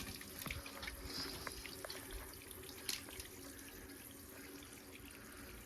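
Faint water hiss with scattered small drips and ticks: pressurised water escaping from a pinhole leak in a buried PVC-to-copper pipe fitting.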